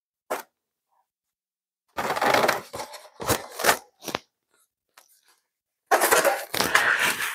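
Styrofoam box and foam packing scraping and crunching as the foam parts are handled: a short click just after the start, then crackly rubbing for about two seconds, and again near the end.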